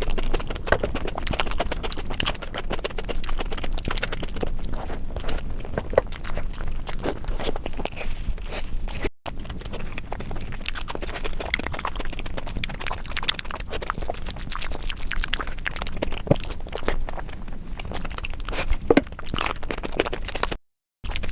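Close-miked chewing and wet mouth sounds of a person eating soft curry and omelet, a dense run of small clicks and smacks. The sound cuts out to silence twice, briefly, about nine seconds in and just before the end.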